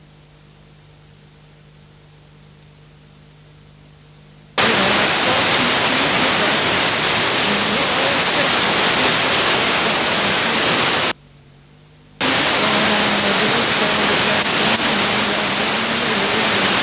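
Loud hiss of TV broadcast audio carrying only noise as the microwave studio-to-transmitter link drops out, the rain in heavy weather weakening the signal. It cuts in suddenly about four and a half seconds in, drops out for about a second near eleven seconds, then returns. Between the bursts of hiss a faint steady hum is left.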